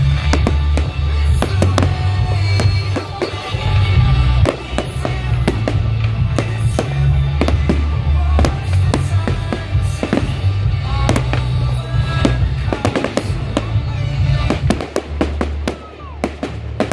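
Fireworks going off in a rapid run of sharp bangs and crackles over deep booms, thinning out near the end, with music playing alongside.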